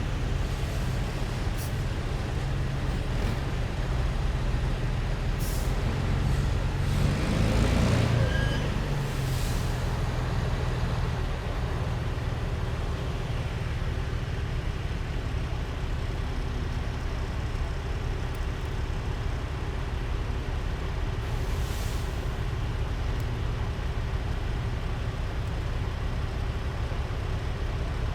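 Heavy military vehicles' diesel engines running as a column drives past, the loudest one passing close about eight seconds in. Short hisses of air brakes break in a few times, about five, nine and twenty-two seconds in.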